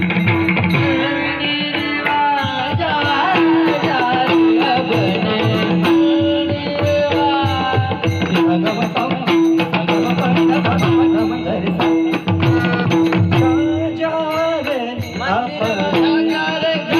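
Male vocalist singing an ornamented, wavering melody in Indian folk-devotional style, over tabla and other percussion and a steady held drone note.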